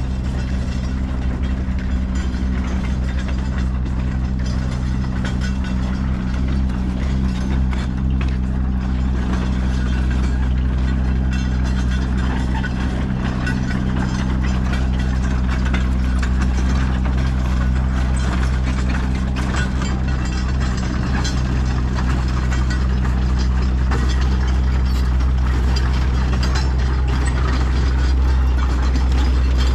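An engine idling: a steady low hum that holds the same pitch throughout.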